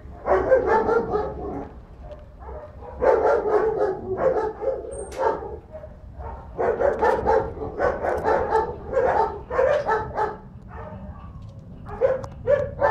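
Dog barking repeatedly in four bouts of quick barks, with short pauses between bouts.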